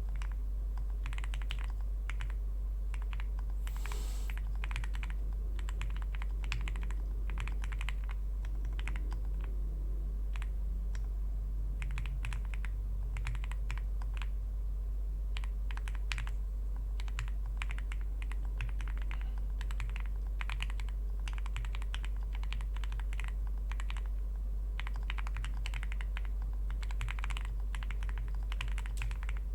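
Typing on an Owlab Spring Alice-layout mechanical keyboard with factory-lubed Gateron Oil King linear switches in an aluminium plate, foam-filled case and GMK keycaps: a continuous, uneven stream of keystrokes. A steady low hum runs underneath.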